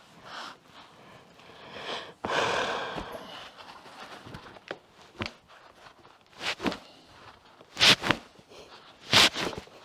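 A person's short, sharp breaths or sniffs, coming about every second and a half in the second half, after a longer noisy breath about two seconds in.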